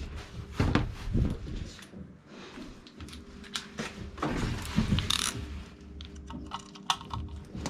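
Hand-tool work on tight screws: small metallic clicks and scrapes of a screwdriver on the fittings, with a few knocks of handling. The clicks come thick and fast near the end.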